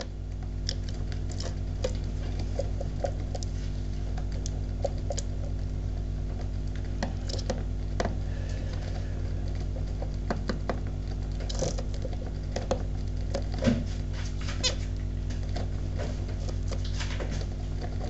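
Zebra finch moving about its cage: scattered small ticks, taps and scratches over a steady low electrical hum.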